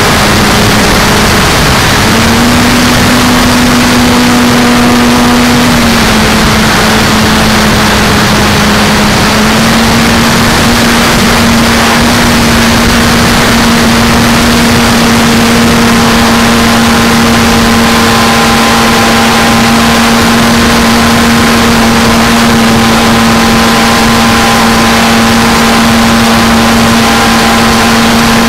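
Motor and propeller of a Sebart Pilatus PC-21 RC model in flight, heard from on board: a steady propeller tone that shifts in pitch with throttle a few times, over a loud, even rush of air.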